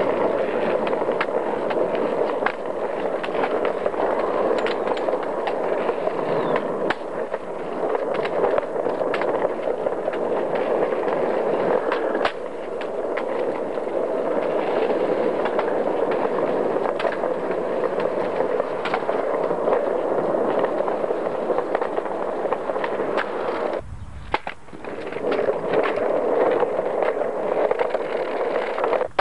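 Skateboard wheels rolling over concrete paving slabs and brick paving, a steady rough rumble with frequent irregular clicks as the wheels cross the joints. Near the end the rolling noise drops away for under a second, then resumes.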